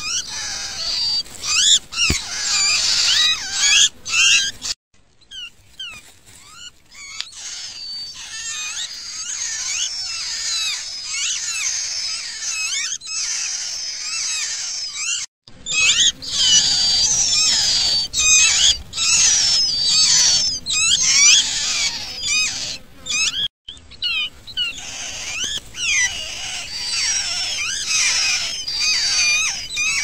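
Nestling songbirds begging: a dense chatter of high, shrill squeaks and chirps sweeping up and down. The calling is sparser for a stretch after a sudden break about five seconds in, then busier again from about halfway, with brief abrupt cut-offs between.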